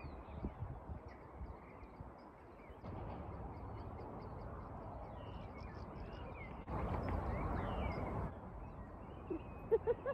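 Open-air ambience of wind rumbling on the microphone, with small birds chirping throughout. There is a louder gust from about seven to eight seconds in, and a few short, harsh crow caws near the end.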